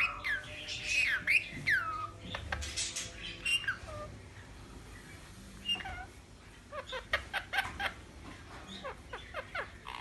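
Pet ringneck parakeet calling: a few whistled, swooping calls in the first two seconds and some sharp clicks, then after a quieter stretch a quick run of short chirps about seven seconds in.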